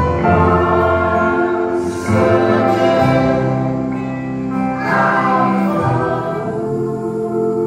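Several voices singing a slow chorus together over held instrumental chords, played back through loudspeakers into a large reverberant room, swelling louder about two and five seconds in.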